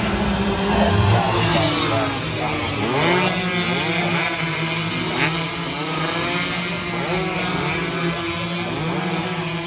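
Several 116cc racing motorcycles revving hard as they pass close by and run through a corner. Their overlapping engine notes repeatedly climb and drop in pitch.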